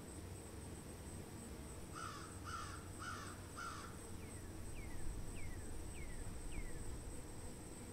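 A crow cawing four times in quick succession, about half a second apart, followed by five short, falling whistled notes from another bird.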